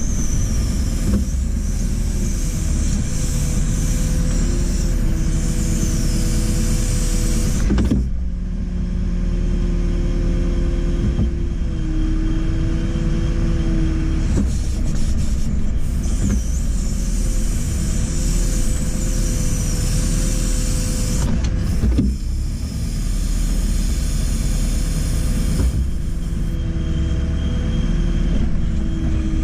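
JCB 4CX backhoe loader's diesel engine running under working load while the backhoe digs, its note wavering with a whine from the hydraulics. There is a sharp clunk about eight seconds in and another around twenty-two seconds.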